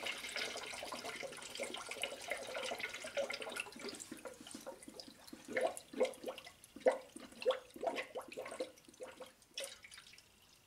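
Engine coolant poured from a jug into a plastic spill-free funnel on the radiator, topping off the cooling system: a steady stream for the first three seconds or so, then irregular gurgles and glugs that die away near the end.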